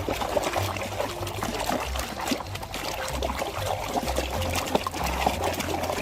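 Water splashing and trickling as muddy plastic toys are rinsed and scrubbed by hand, with small knocks of plastic throughout.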